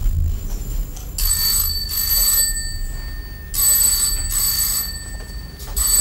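Telephone bell ringing in double rings: two pairs of rings, with a third ring beginning near the end, an incoming call.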